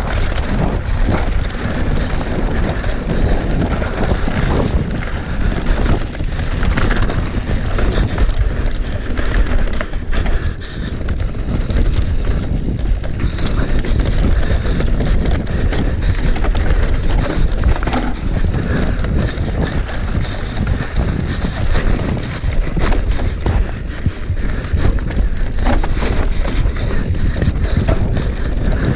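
Wind rushing over the microphone of a mountain bike descending a rooty, bumpy trail, with constant rattling and knocks from the bike over the roots and bumps.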